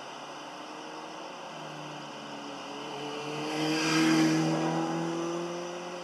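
A motor vehicle passing close by, its engine note slowly rising as it accelerates; it swells to loudest about four seconds in, then fades.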